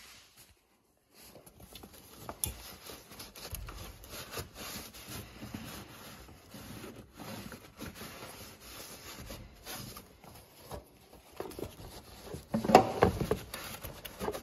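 Hands working among rubber hoses and wiring in a car's engine bay, engine off: irregular rubbing and scraping with scattered small clicks, and a louder burst of knocks near the end.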